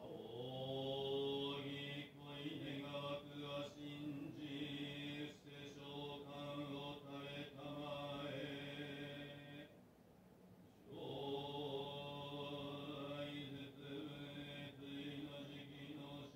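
A man chanting the ekō, the Buddhist dedication of merit, in a steady monotone on a nearly level pitch. He breaks off for a breath about ten seconds in, then goes on.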